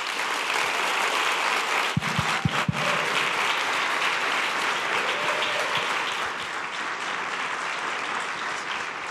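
Audience applauding steadily, with a few sharper, louder sounds about two seconds in; the applause eases slightly toward the end.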